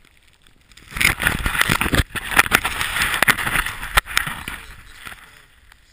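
Snowboard riding through deep powder snow: a loud rushing hiss of snow and wind on the microphone starts about a second in and fades out near the end, broken by a few sharp knocks.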